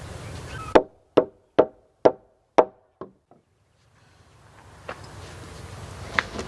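A hammer knocking on a log floor joist: about six sharp blows roughly half a second apart, then two fainter taps as they trail off about three seconds in.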